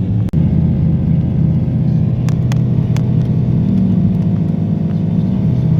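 2007 Dodge Ram 2500 pickup truck driving: a steady engine and road drone, with a few faint ticks a couple of seconds in.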